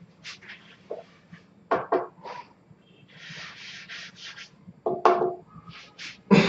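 A hand tool scraping in strokes across a wooden board as a glued-up panel is levelled by hand: a few short strokes, then a longer one of about a second and a half just past the middle.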